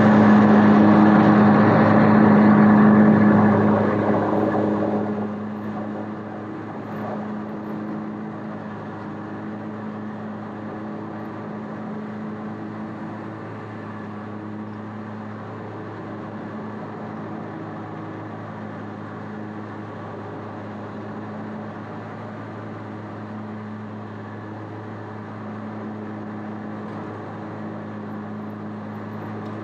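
Bad Boy ZT Elite zero-turn mower's engine running with a steady hum. A loud rush of noise over the first few seconds dies away after about five seconds.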